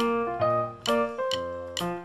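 Background music: a keyboard playing a simple tune in struck, piano-like notes that die away, about two notes a second.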